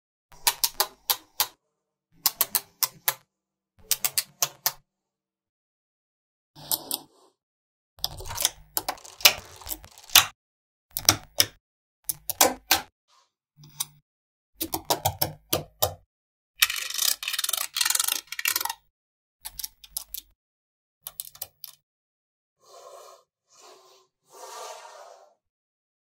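Magnetic balls clicking together as small blocks of them are snapped onto a growing slab: quick clusters of sharp clicks with silence between. About two thirds of the way through, a longer, denser clattering run.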